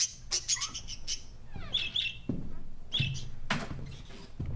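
Parakeet chirping: a few short chirps about two seconds in and again about three seconds in, over scattered soft knocks.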